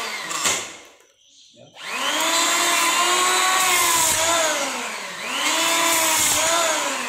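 Kyuho K-282 electric hand planer (580 W, 16,500 rpm) starting up about two seconds in and planing a wood block, its motor pitch sagging and recovering twice as it takes the cut. It cuts without any screech, a sign that the stock blades are very sharp.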